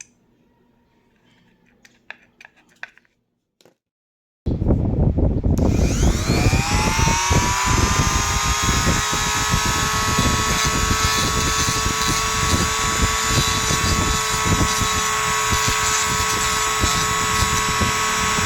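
A few faint clicks, then about four and a half seconds in a small high-speed electric rotary tool switches on, its whine rising quickly to full speed and then running steadily, grinding down the hardened super glue and baking soda repair.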